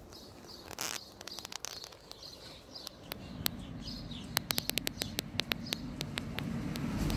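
A run of sharp, quick clicks as the rotary dial of a West Bend frying-pan temperature controller is turned by hand. Faint bird chirps sound in the background, and a low rumble builds toward the end.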